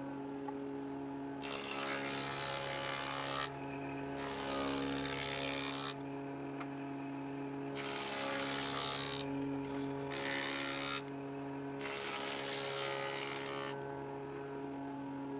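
Circular saw of a combination woodworking machine running steadily, cutting the ends of wooden boards five times as they are pushed through on a sled, each cut lasting one and a half to two seconds; these are the joint notches for beehive super boxes.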